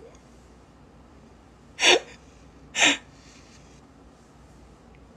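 Two short, breathy vocal sounds from a man, about a second apart, over faint room tone.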